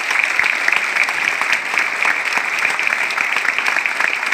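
An audience applauding: many people clapping together in a steady, even stream of claps.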